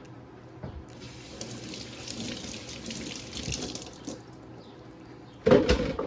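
Kitchen tap running into the sink for about three seconds, a steady splashing hiss. Near the end comes a short, loud, sudden sound.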